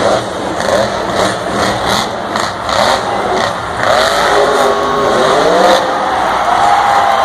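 Monster truck's supercharged V8 engine revving hard at high throttle, its pitch rising and falling from about four seconds in as the truck takes the ramp.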